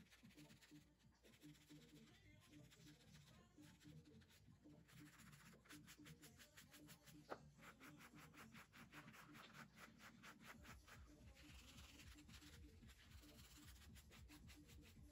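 Faint rasping of hand sanding: a small wooden disc rubbed back and forth on a sanding block in quick strokes, about five a second, from about five seconds in to about ten, with one sharp click partway through.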